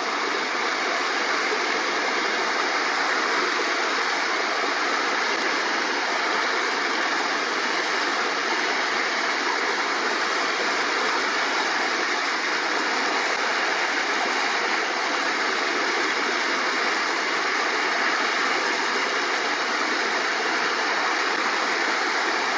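Clearwater River flowing steadily across a wide, braided shallow section: a constant, even rush of moving water with no breaks.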